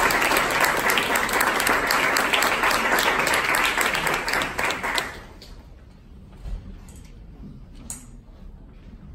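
Audience applauding, dying away about five seconds in; after that the hall is quiet except for a soft low thump and a few faint clicks.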